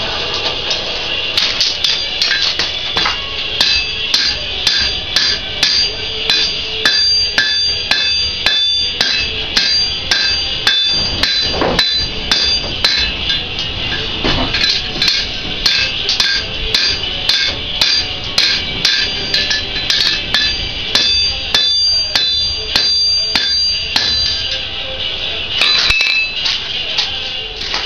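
Blacksmith's hand hammer striking hot iron on an anvil at a steady pace of about two blows a second, the anvil ringing with a high, bell-like tone after each blow.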